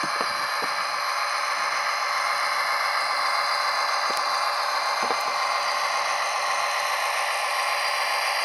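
Model diesel locomotive's Tsunami sound decoder playing a steady EMD diesel engine sound through the model's small speaker, thin with little bass, with a few faint ticks.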